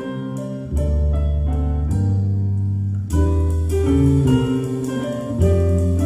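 Instrumental background music: a run of short picked or struck notes over a low bass note that changes every couple of seconds.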